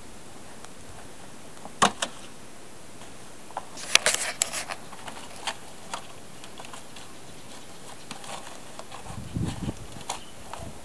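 Empty cardboard tissue box scraping and knocking on gravel as a cat rolls and paws at it: scattered short crackles and clicks, thickest about four seconds in, with a soft thump about nine seconds in.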